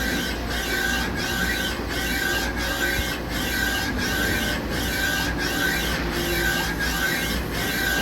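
Z2 axis ball screw and servo drive of a Star SR-32J CNC Swiss lathe running the slide back and forth, a steady mechanical whir with a short break about every two-thirds of a second as the stroke repeats.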